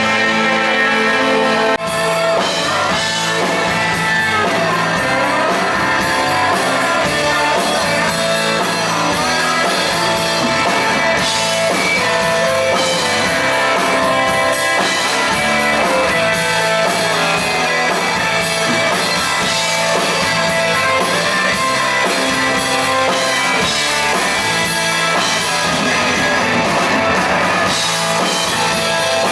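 Rock music with electric guitar and drums at a steady loud level, cutting off abruptly at the end.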